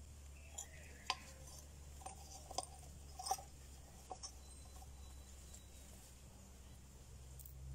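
Dachshund digging in spilled potting soil beside a toppled terracotta pot: faint, scattered scratches and clicks over a low steady hum.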